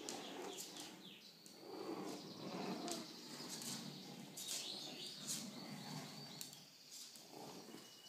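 Umbrella cockatoo flapping its wings in uneven rustling bursts while it knocks a small wooden block about on a wooden floor, giving scattered sharp clicks, with a few faint high squeaks.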